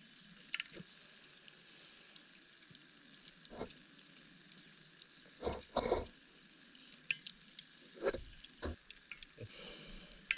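Water sounds around a diver: a steady fizzing crackle with many scattered sharp clicks, and a few louder low gurgling bursts, like bubbles, near the middle and again later on.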